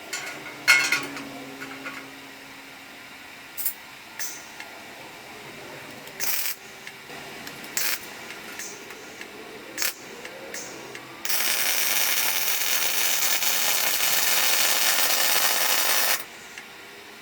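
A few sharp metal clanks as steel pieces are handled, then a plasma cutter cutting steel for about five seconds: a steady hiss that starts and stops abruptly.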